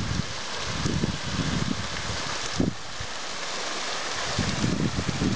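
Small waterfall pouring down a stone wall and splashing onto the road, a steady rushing hiss, with gusts of wind buffeting the microphone and one short bump about halfway through.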